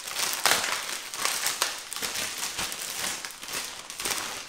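A blue plastic mailing bag crinkling and rustling as it is pulled open and handled, with a run of short irregular crackles.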